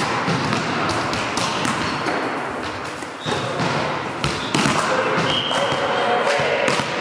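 Volleyball being bounced and thudding on a hardwood gym floor, a run of irregular knocks with players' voices, all echoing in a large hall.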